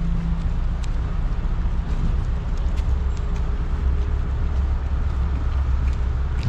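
Road traffic: a steady low engine rumble from motor vehicles, with a few faint ticks over it.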